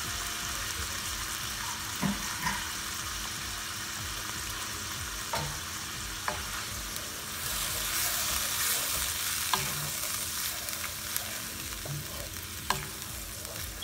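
Chicken pieces and yogurt sizzling gently in a nonstick frying pan on very low heat, the sizzle swelling about halfway through. A few light knocks of a utensil against the pan, and a wooden spatula stirring the yogurt sauce near the end.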